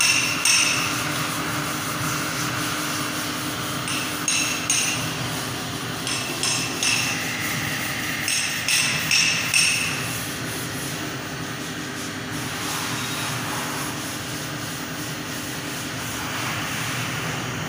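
Handheld electric heat gun running steadily, its blower giving a constant whooshing hum while it heats a PVC wiring conduit to soften it. In the first half there are several short bursts of sharp, ringing taps.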